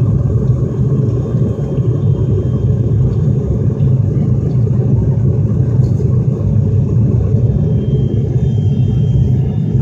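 Cabin noise inside an ATR 72 turboprop airliner in flight just after take-off: the steady, loud, low drone of its engines and propellers.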